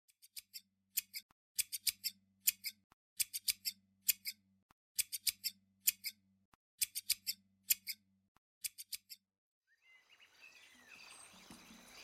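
Scissors snipping repeatedly in quick clusters of two to five snips, over a faint low hum, stopping about nine seconds in. After that a soft outdoor hiss with a few bird chirps fades in near the end.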